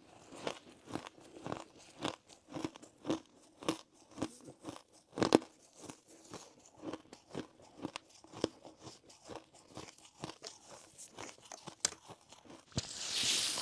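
A person chewing a mouthful of crunchy ice, the ice cracking between the teeth in quick, irregular crunches about two a second, one louder crunch about five seconds in. A short hiss near the end.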